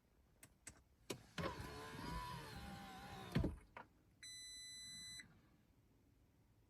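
A few light clicks, then a small electric motor in an Audi A6 C7.5 runs for about two seconds with a slightly falling whine and stops with a clunk. A steady electronic warning chime follows for about a second.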